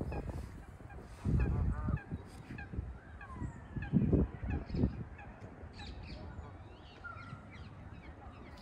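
Canada geese honking: a few loud calls about a second in and another group around four seconds in. Small birds chirp lightly in the background.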